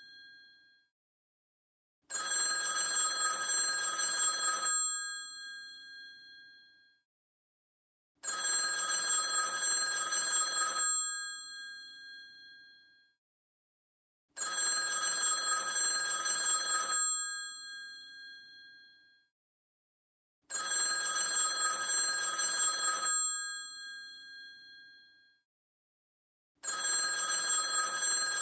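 Old telephone bell ringing in repeated rings, each lasting about two and a half seconds and then fading away, with a new ring starting about every six seconds; five rings begin, the last near the end.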